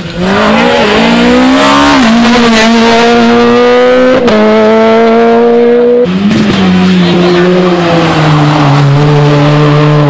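Rally car engines at full throttle: the first revs up and drops twice in quick upshifts, about two and four seconds in. After a break, a Peugeot 106 rally car's engine runs hard and steady on a climb, its pitch stepping down about eight seconds in.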